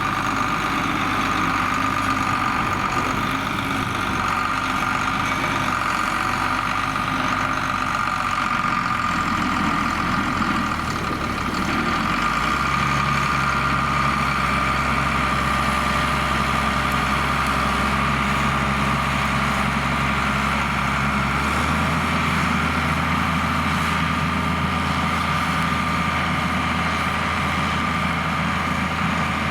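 John Deere 4850 tractor's six-cylinder diesel engine running steadily, pulling a six-furrow plough. Its low engine note changes pitch twice, about twelve and about twenty-one seconds in.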